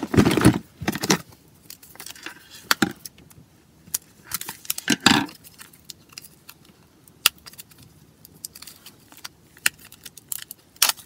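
Plastic shrink-wrap on a small plastic toy canister being crinkled and picked at, with scattered sharp clicks from handling the canister. Louder rustles come at the start and again about five seconds in.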